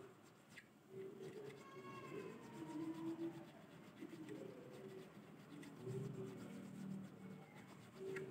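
A small file rasps back and forth across the nut of a Squier bass, lowering the nut slots to bring the string action down. Faint wavering animal calls sound alongside and are the loudest thing at moments.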